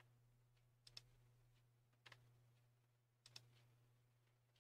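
Faint computer mouse clicks, three or four about a second apart, some doubled, as model edges are picked on screen, over a faint steady low hum.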